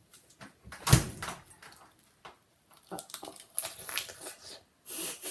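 A refrigerator door thumps shut about a second in, followed by scattered clicks and handling noises close to the microphone.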